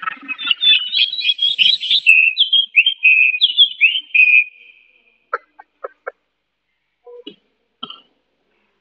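A caged Chinese hwamei sings a loud, varied song of fast rising and falling whistled phrases, breaking off about four and a half seconds in. A few short, sharp notes follow, four in quick succession and two more near the end.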